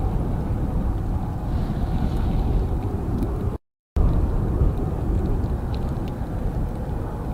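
Steady low jet-engine rumble mixed with wind noise, cut by a brief dropout to silence about three and a half seconds in.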